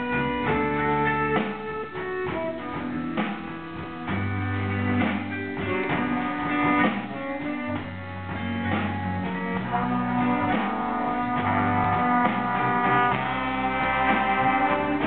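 Student stage band playing a jazz piece, saxophones and trombones sounding together in held chords over a low bass line.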